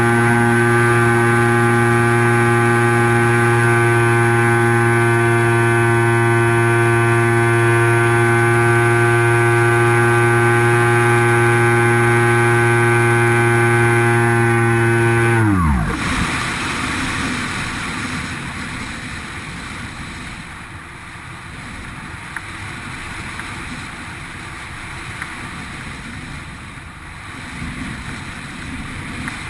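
X8 flying wing's motor and propeller running at a steady pitch, then the throttle is cut about sixteen seconds in and the whine falls away quickly as the propeller spins down. After that only a steady rushing of wind is left.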